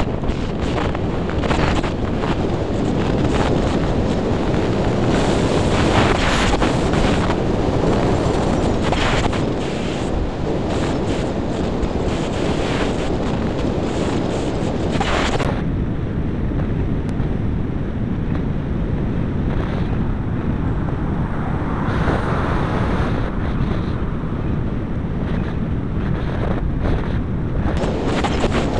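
Heavy wind rushing over a bicycle-mounted camera's microphone as the bike descends at close to 30 mph. The upper hiss thins out about halfway through.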